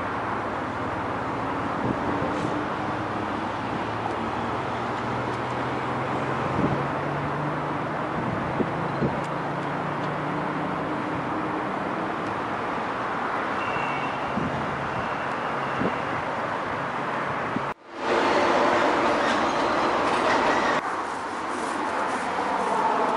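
Steady rushing noise of city street traffic, with a faint hum for a few seconds in the middle. A cut about 18 s in brings a louder, brighter stretch of the same kind of noise.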